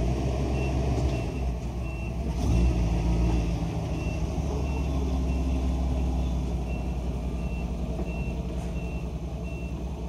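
A vehicle engine idling steadily, with a short electronic warning beep repeating about twice a second; the engine sound swells briefly about two and a half seconds in.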